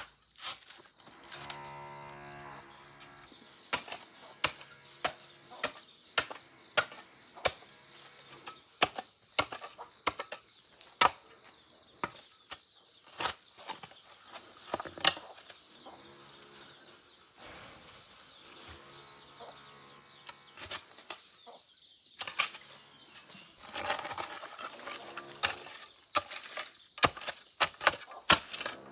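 Hand tool striking again and again while a drainage ditch is dug open: irregular sharp chops, about one a second, growing denser near the end.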